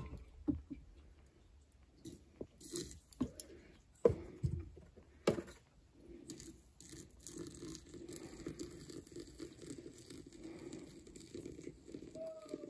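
A few short knocks and clicks, then from about six seconds in a steady, faint rush of boiling water pouring from a kettle through a stainless steel infuser of loose tea into a glass teapot.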